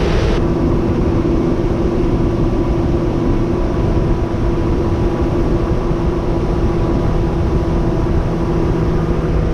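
Boat's outboard motor running steadily at speed, with a steady drone under heavy rushing wind and water noise.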